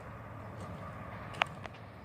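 Steady low rumble of a Norfolk Southern intermodal freight train running past at speed, with one sharp click about one and a half seconds in.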